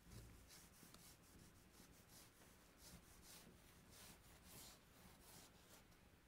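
Faint scratching of red chalk drawn across textured paper, in a quick series of short strokes as an outline is sketched.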